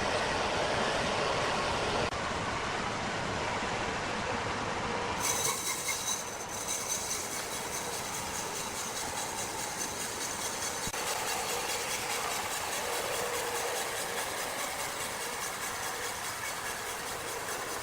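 Steady mechanical noise of heavy machinery running, changing abruptly about five seconds in to a similar machine noise with a few steady high tones.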